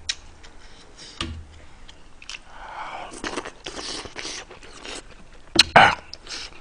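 Close-miked eating: a spoon scraping up rice and kimchi stew, then chewing of the mouthful. Two sharp, loud clicks come near the end.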